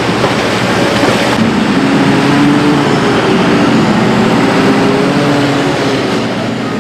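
Large mining excavator's diesel engine and hydraulics running under load: a loud, steady mechanical din with a faint wavering whine that rises and falls in the middle.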